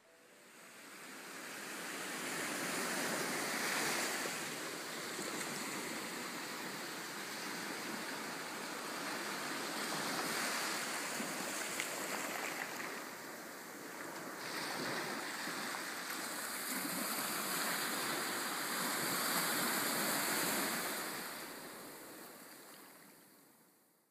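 Small sea waves breaking and washing up a sandy beach, the surf rising and falling in slow surges. It fades in over the first few seconds and fades out near the end.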